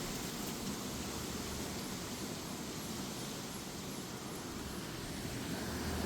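Gusty wind with rain, a steady rushing noise that eases a little mid-way and builds again near the end.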